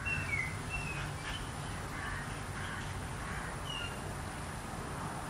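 Outdoor ambience: a steady low rumble with a few short, high bird calls, several in the first second and another a little before the end.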